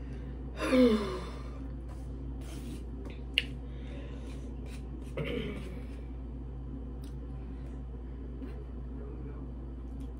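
A woman sighs, a breathy voiced exhale falling in pitch, about half a second in; a sharp click follows a few seconds later, then a second, softer sigh, over a steady low hum.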